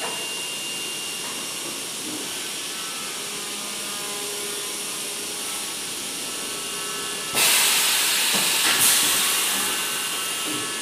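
Luggage vacuum forming machine running with a steady hiss and a faint high whine. About seven seconds in, a loud rush of air starts suddenly, surges again a second later, then fades over the next few seconds.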